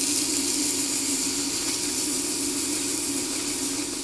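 Wet-or-dry sandpaper held against a spinning metal pulley on a metal lathe: a steady abrasive hiss over the even hum of the running lathe. The sanding is being done dry.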